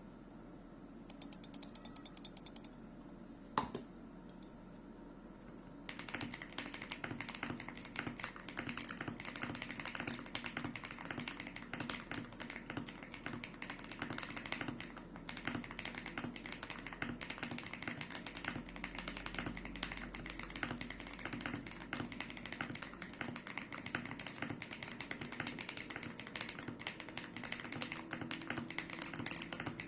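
Typing on an ND75 mechanical keyboard with HMX Purple Dawn linear switches and Spaceship PBT keycaps in OEM profile. A single sharp keystroke sounds about three and a half seconds in, and fast, steady typing starts about six seconds in.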